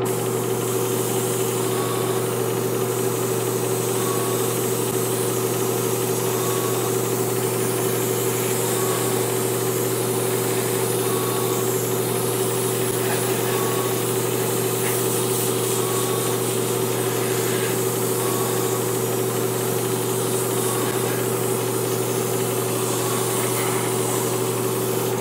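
Gravity-feed airbrush spraying paint in one continuous hiss, starting and stopping cleanly, over the steady hum of its air compressor.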